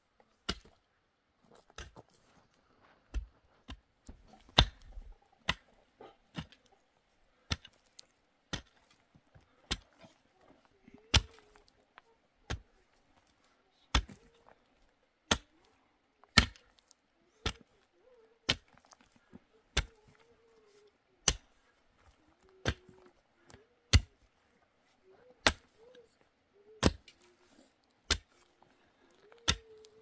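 A steel pickaxe striking hard, stony soil over and over, a sharp hit about every second and a quarter as the ground is broken up by hand.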